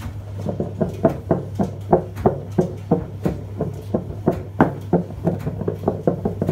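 Samsung washing machine drum clattering as it turns: a quick, uneven run of knocks, about four a second, over a steady low motor hum.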